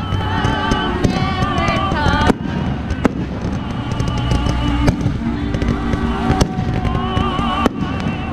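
Ground fountain firework spraying sparks, with a steady hiss and many sharp crackles and pops. Music plays alongside it.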